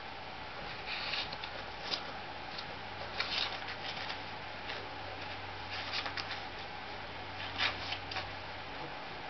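A small dog tearing and chewing toilet paper and a cardboard tube: irregular rustling and ripping of paper in short bursts, a second or so apart.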